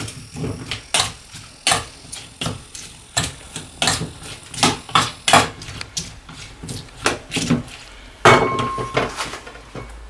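A metal spoon scrapes and clinks against a stainless steel mixing bowl as vegetables are tossed in chili seasoning, in irregular strokes about once or twice a second. Near the end there is one louder clank with a brief ring.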